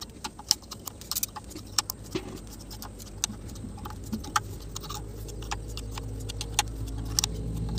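Open-end spanner clicking and tapping against the bolt heads as the timing cover bolts of an engine are tightened one after another: irregular, sharp metal clicks. A low rumble builds toward the end.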